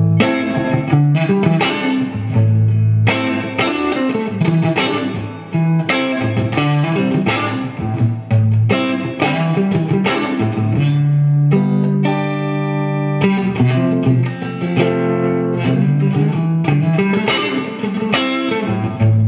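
Electric guitar played through a Marshall JVM410 valve amp after new JJ tubes have been fitted and biased: a run of plucked notes and chords, with one chord held for a second or so about twelve seconds in.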